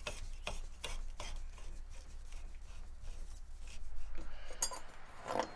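Metal fork cap being screwed by hand onto the upper tube of a motocross front fork: faint rubbing and small metallic clicks from the threads and the handling, a little louder about four seconds in.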